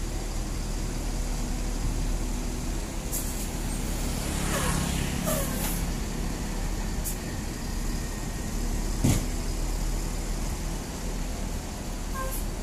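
Mercedes-Benz OH1526 coach's diesel engine running with a low, steady rumble as the bus moves off slowly, with several short air hisses and one sharp knock about nine seconds in.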